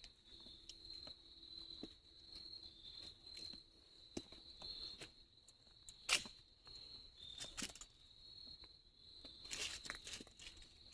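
A steady, high-pitched insect trill, with footsteps crunching on the trail now and then, the loudest steps about six seconds in and near the end.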